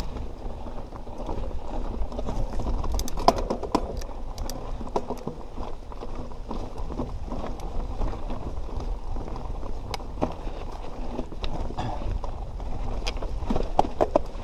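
Canyon Nerve 27.5 mountain bike riding a rocky trail: a steady rough rolling noise with a low rumble, and frequent sharp clicks and rattles from the bike over rocks, bunching up about three seconds in and again near the end.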